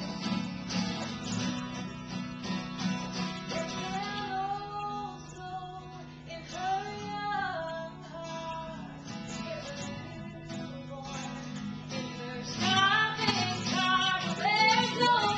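Live song: a woman singing to a strummed acoustic guitar. The strumming is most prominent in the first few seconds, and her voice comes in louder about two-thirds of the way through.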